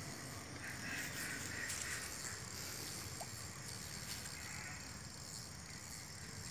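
Faint, steady chirring of insects such as crickets, over a low background hum.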